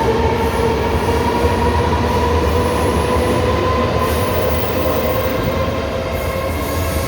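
A train running past, with a steady rumble of wheels on the rails and a whine that slowly rises in pitch as it gathers speed.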